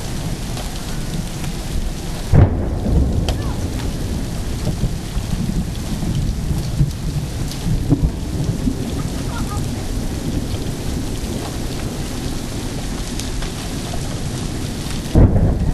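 Thunderstorm: steady rain with rumbling thunder, and two sudden loud low bursts, one about two seconds in and one near the end.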